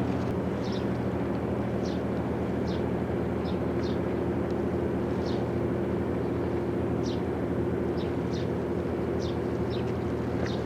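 Large cruise ship's engines droning steadily, a low hum of several steady tones. Short high chirps sound about once a second over the drone.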